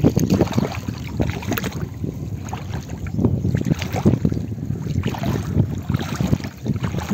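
Water splashing and sloshing in irregular strokes, with wind buffeting the microphone.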